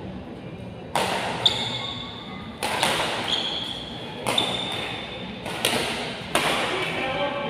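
Badminton rackets striking a shuttlecock in a doubles rally: about six sharp hits, roughly one a second, each echoing in the hall, with short high squeaks of shoes on the court between them.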